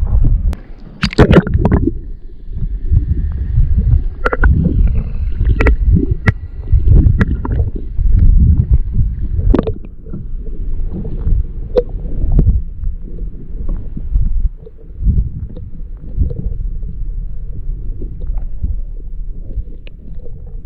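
Ocean water sloshing and gurgling against a kayak hull, heard muffled as a low, uneven rumble, with scattered sharp knocks.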